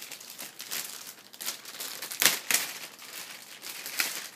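Unboxing packaging crinkling and rustling as it is handled, in irregular crackles, the loudest a little over two seconds in.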